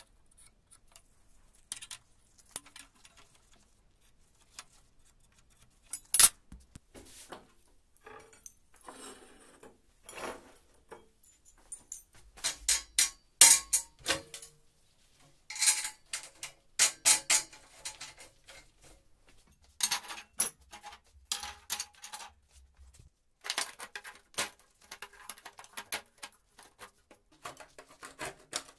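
Sharp clinks and knocks of steel square tubing and metal tools being handled and set down on a workbench, in scattered clusters with quiet gaps between.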